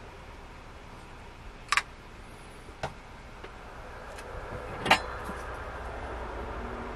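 A few sharp clicks and taps of small tools and parts being handled and set down on a workbench, the loudest about five seconds in, over a low steady hum.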